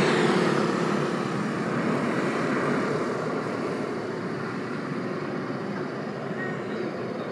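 Airbus A321 airliner's twin jet engines at takeoff thrust, a broad rushing noise that fades steadily as the aircraft climbs away.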